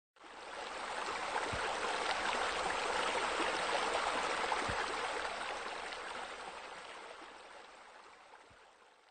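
Steady rush of flowing, splashing water, like a stream or fountain. It fades in at the start and slowly fades away over the last few seconds.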